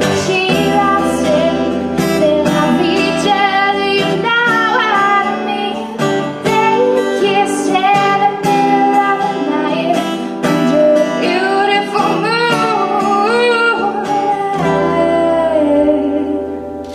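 A woman singing a slow song with sliding, melismatic notes, accompanying herself on an acoustic guitar.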